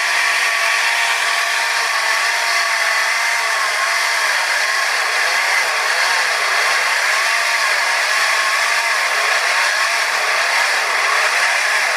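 Small petrol 'alkon' water-pump engine driving a coconut grater, running fast and steady. Its tone dips and rises about every second and a half.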